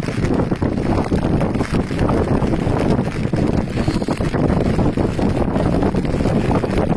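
Wind buffeting the microphone, a loud, constant blustery noise.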